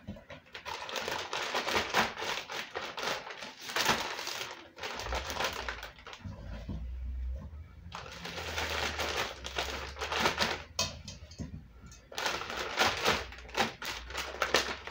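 Plastic zip-top freezer bags crinkling and rustling as raw chicken strips are handled and dropped into them, in irregular bursts with short pauses.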